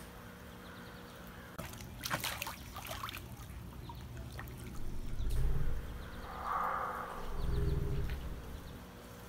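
Water lapping and trickling while a swimmer holds their breath under the surface, with a few sharp splashy clicks about two seconds in and a couple of low rumbles in the second half.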